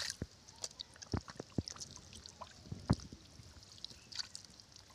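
Scattered short wet slaps and small splashes of fish flapping on mud and in shallow water, loudest a second in and near three seconds, over a faint trickle of water.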